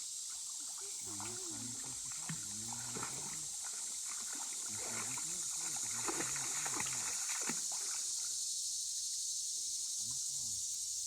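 Water splashing and sloshing in a shallow creek, with faint, indistinct voices and a steady high hiss of insects.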